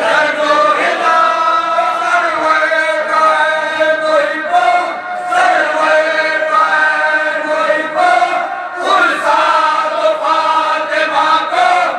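A group of men chanting a Shia Muharram mourning lament (nauha) in unison, in long sung phrases.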